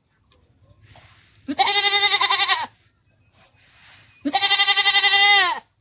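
A goat bleating twice, each call about a second long with a quavering pitch.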